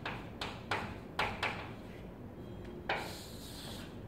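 Chalk on a chalkboard: quick taps and short strokes of writing in the first second and a half, then one longer scraping stroke lasting about a second, around three seconds in.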